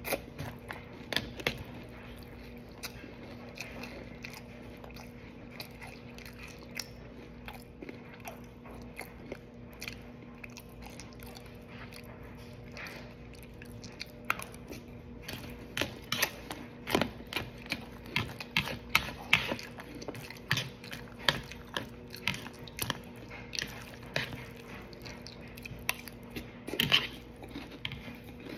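Close-up chewing and crunching of a mouthful of Captain Crunch cereal: many short sharp crunches that come thicker and louder from about halfway through.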